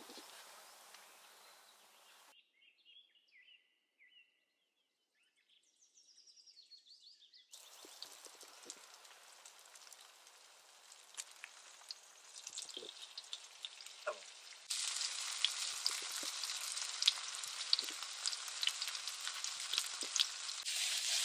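Tofu cubes frying in oil in a skillet over a wood fire: a dense sizzle with many pops that starts suddenly about 15 seconds in and is the loudest sound. Before it, fainter crackling and scattered ticks.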